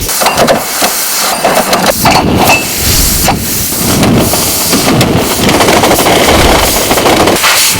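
Train noise: a loud, steady hiss-like rush with irregular clanks and knocks through it.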